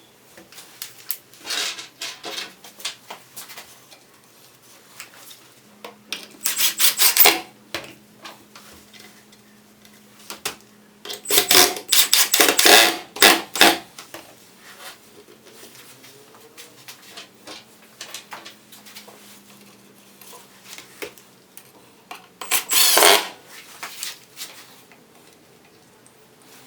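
Clattering and scraping of hard objects being handled, in three louder spells of dense clicks, with scattered lighter clicks between and a faint steady hum underneath.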